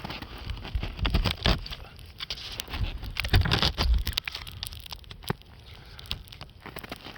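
Wood campfire crackling, with many sharp irregular snaps, while wind gusts buffet the microphone with a low rumble about a second in and again from about three to four seconds in.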